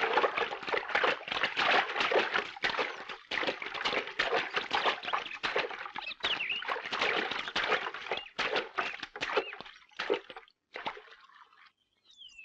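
A swimmer's strokes splashing and sloshing through pool water in a quick, irregular run of splashes. The splashes thin out and stop about ten to eleven seconds in.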